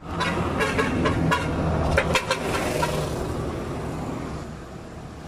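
Road traffic: a vehicle's engine running as it passes, with a few sharp rattles early on, fading gradually as it moves away.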